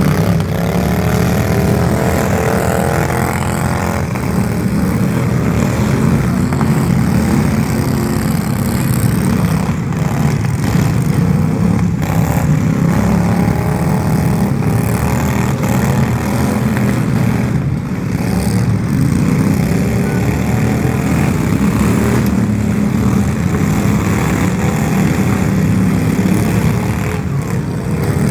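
A loud combustion engine running continuously, with its pitch swelling and easing a couple of times as the revs vary.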